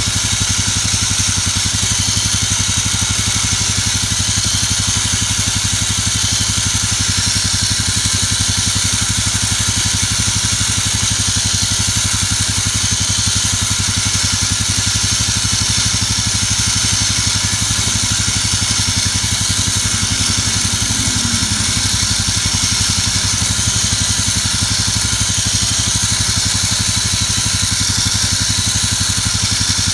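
Honda Rancher 420 ATV engine idling steadily, with its electric winch running to reel in the new cable.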